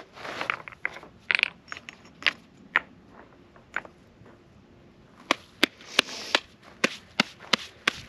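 Rocks clacking against one another as they are set and shifted on a stone fire ring: sharp knocks at irregular intervals, most thickly in the second half, with a little scraping between them.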